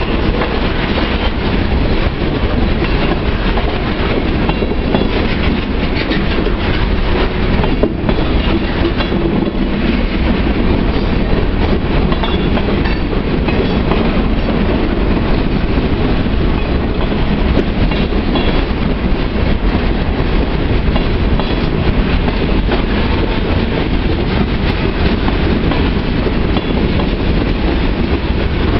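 Loaded and empty freight boxcars rolling past close by over a street crossing: steel wheels on the rails making a loud, steady rumble and clatter.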